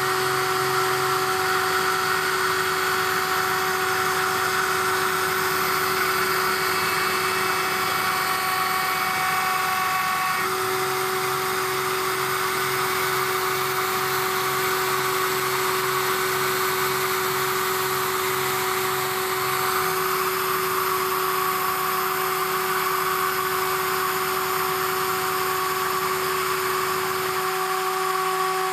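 CNC router spindle running with a steady high whine while it chamfers the top edges of an aluminium plate, under a pulsing low hum from the axis motors that changes a few times as the moves change.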